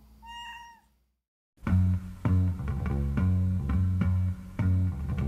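A Siamese cat gives one short meow near the start. About a second and a half in, background music with a steady bass line and plucked guitar begins and carries on, louder than the meow.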